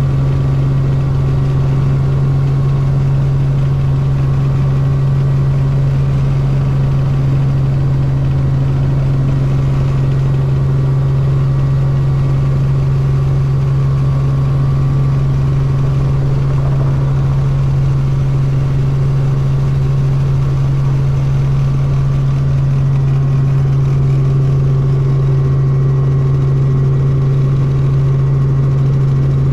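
Helicopter engine and rotor heard from inside the cabin: a loud, steady drone with one strong low hum, as the helicopter lifts off the helipad and climbs. It grows slightly louder over the last few seconds.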